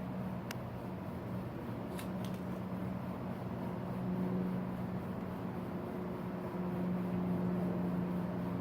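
A steady low mechanical hum, with a few light clicks in the first few seconds.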